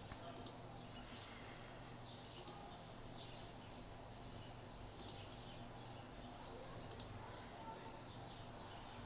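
Computer mouse clicking four times about two seconds apart, each a quick double click, over a faint steady low hum.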